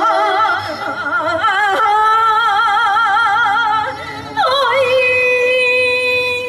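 A solo voice singing a slow melody in Korean traditional style, with wide vibrato and long held notes. About four seconds in it breaks off briefly, then comes back sliding down in pitch into a long steady note.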